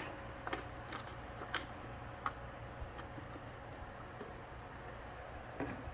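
A few sharp, light clicks and taps from hands handling the robot vacuum and its paper sensor covers, over a low steady hum.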